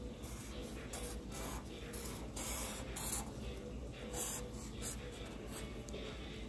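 Black felt-tip permanent marker drawing on paper: a run of short, scratchy pen strokes, about two a second, over a steady low hum.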